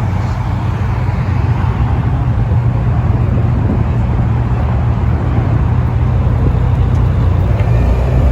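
BMW E92 M3's V8 engine running steadily at low speed, a constant low drone with road and tyre noise over it.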